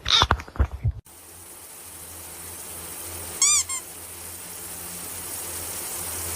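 A cat gives one short meow with a tiny second note after it, over a steady hiss and low hum that slowly grows louder. The meow comes about halfway through, after a few brief clicks and knocks at the start.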